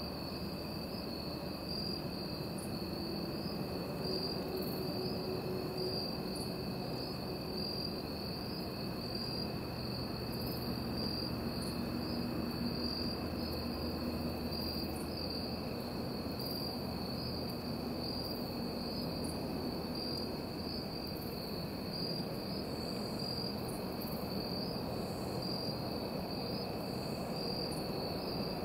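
Steady chorus of crickets: a continuous high trill, with a fainter, lower trill beneath it.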